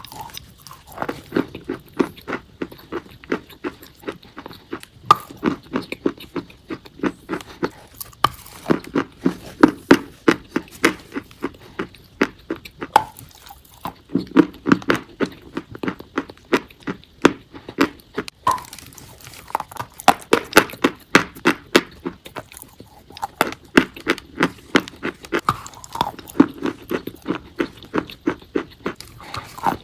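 Chalk being bitten and chewed close to the microphone: bursts of sharp, brittle crunches in quick clusters, with short pauses between mouthfuls.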